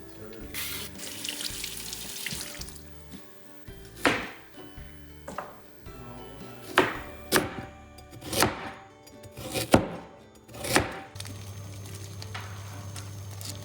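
Background music with a run of about seven sharp knocks through the middle, spaced roughly a second apart, then a steady low hum near the end.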